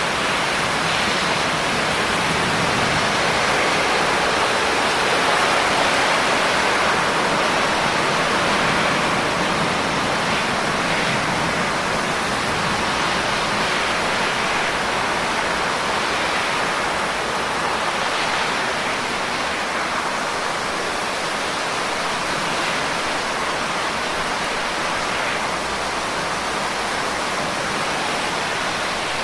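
Steady rain, a dense even hiss of falling water with no separate drops standing out.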